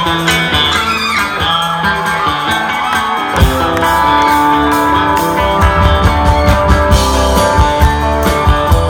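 Live rock band playing, starting with electric guitars alone. About three and a half seconds in, bass and drums come in on a hard hit, and the full band plays on with a steady beat.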